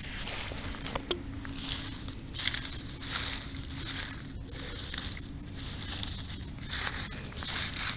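Footsteps crunching and rustling through dry soybean stubble and harvest residue: an irregular run of crackly steps.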